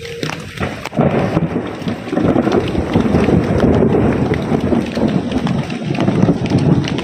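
Loud thunder rumble that breaks in suddenly about a second in and keeps going over heavy rain.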